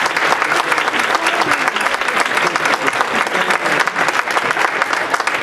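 Audience applauding, dense steady clapping with a few voices underneath.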